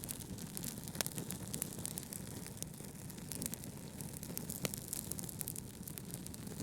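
Crackling fire with many small ticks and two sharper pops, one about a second in and one past the middle, over a steady low rumble of brown noise.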